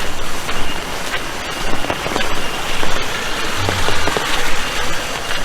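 Steady rain falling, a dense hiss with scattered louder drop hits.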